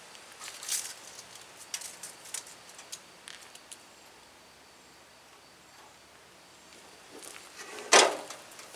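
Scattered light crackling footsteps and handling noises outdoors, then a quiet stretch. Near the end comes one loud, sharp knock.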